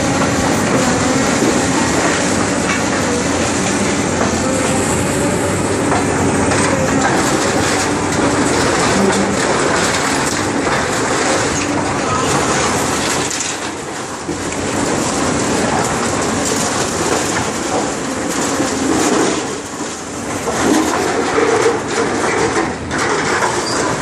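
Caterpillar 328D tracked excavator demolishing a wood-frame building: its diesel engine and hydraulics run under load while the bucket crunches and tears through splintering lumber, sheet metal and debris, a dense clatter of cracking and scraping.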